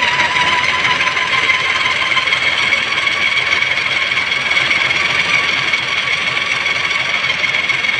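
Heavy-duty electric drill running steadily with its tool turning inside a cylinder liner bore of a Massey Ferguson 385 engine block, a constant high whine over metal-on-metal noise.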